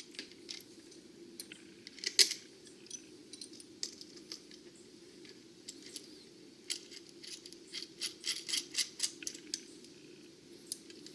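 Small metal parts clinking: a washer and lock washer being handled and moved onto a battery terminal bolt. There is one sharp clink about two seconds in and a run of quick clicks in the second half, over a faint steady hum.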